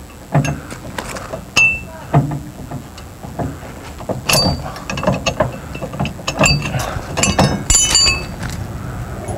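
Irregular metal clinks and knocks with short ringing tones: the pin being pulled from the bottom of a fifth-wheel camper's old manual landing gear leg and the steel foot being worked off.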